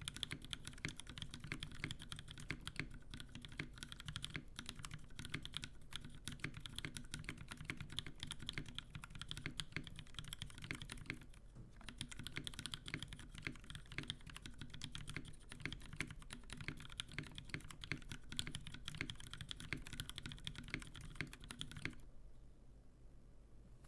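Fast, continuous typing on a custom mechanical keyboard with lubed Kailh Pro Burgundy linear switches on an FR4 plate and GMK Space Cadet keycaps. The typing stops about two seconds before the end.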